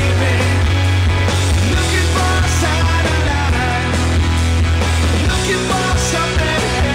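Rock music playing continuously, with a loud, steady bass.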